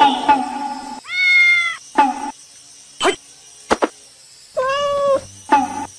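A domestic cat meowing. There are two drawn-out meows about three and a half seconds apart, each followed by a short, higher mew, with a couple of sharp clicks between them.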